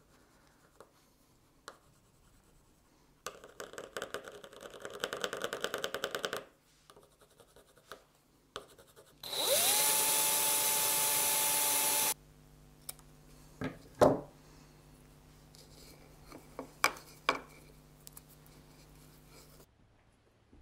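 An electric drill with a small twist bit drills a hole through a gilded bauble ornament: the motor spins up with a rising whine, then runs steadily for about three seconds before stopping. Before it comes a few seconds of scratchy rubbing, the agate burnisher going over the gold leaf on the raised gesso. After the drill, a few sharp knocks sound over a low hum.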